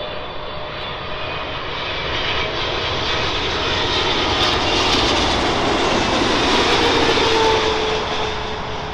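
Boeing 777-300 jet airliner on final approach with its landing gear down, passing low overhead: engine noise builds to a peak and then fades as it goes by, with a whine that drops slightly in pitch as it passes.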